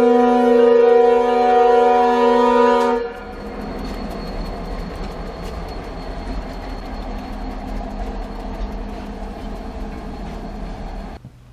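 A loud horn sounding a chord of several notes, held for about three seconds. It gives way to a quieter steady rumble with faint clicks, which cuts off abruptly near the end.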